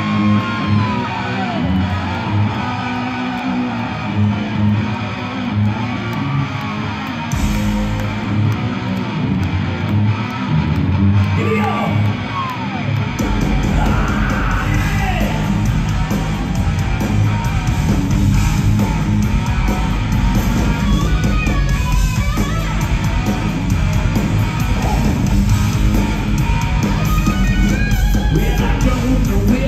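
Live hard rock band heard from the crowd: a hollow-body electric guitar plays bent, gliding notes over a sparse beat, then the drums and bass come in hard about halfway through and the full band plays on.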